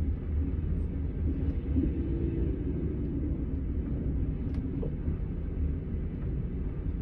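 Setra S 431 DT double-decker coach running, a steady low rumble with a couple of faint clicks or rattles about four and a half seconds in.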